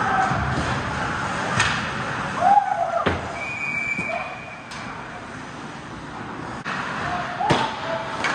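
Ice hockey play heard from the goal: three sharp knocks of stick and puck, with players shouting. A steady whistle blows for about two seconds near the middle, typical of a referee's whistle stopping play.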